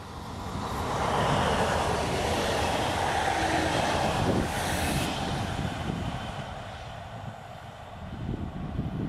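ZSSK class 671 double-deck electric multiple unit running past close by. The rumble of its wheels and running gear rises about a second in, holds for a few seconds as the cars go by, then fades as the train moves away.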